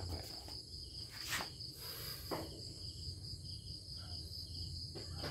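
Steady high-pitched chirring of crickets over a low rumble, with a couple of soft clicks.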